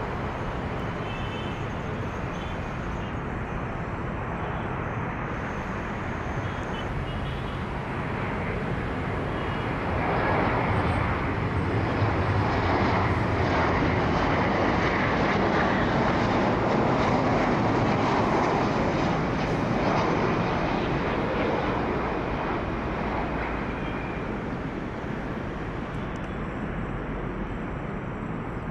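Aircraft engines passing: a steady rushing noise that swells about a third of the way in, holds for several seconds, then fades toward the end.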